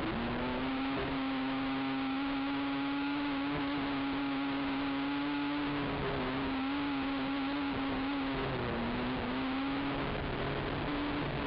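Racing ATV engine held at high revs while the quad is ridden along a dirt trail: a steady high engine note that dips briefly about halfway through and again about three quarters through before climbing back, over rushing wind noise on the on-board camera.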